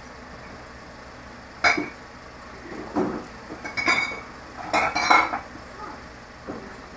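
Hard containers being handled, knocking and clinking together in about five separate clanks, several with a short bright ring, the busiest cluster about five seconds in.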